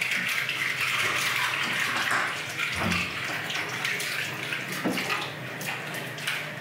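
Kitchen tap running steadily into a stainless steel sink, the water splashing as cinnamon leaves are rinsed under it by hand.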